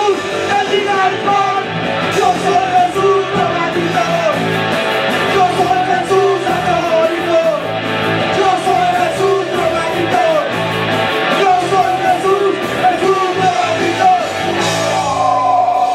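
A live rock band playing loud: a lead singer over electric guitar, bass guitar and a drum kit.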